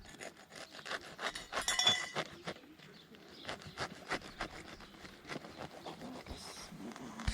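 Utensils clinking and tapping against dishes as food is served and eaten: a run of light clicks and clinks, with one short ringing clink about two seconds in.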